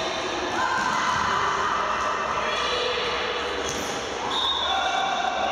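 Futsal match in a reverberant sports hall: players' shoes squeaking in long, high, held tones on the wooden court as they turn and slide, with the ball being played and voices in the hall.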